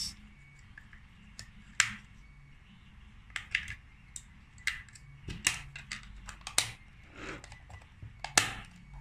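AA batteries being pressed into a small plastic battery compartment: a string of separate sharp clicks and knocks of batteries against the spring contacts and plastic case, with the loudest click near the end as the lid is fitted back on.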